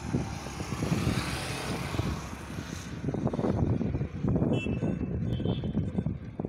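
Wind buffeting the microphone beside a highway, a gusty low rumble throughout. For the first three seconds the hiss of passing traffic rides over it, then cuts away fairly suddenly.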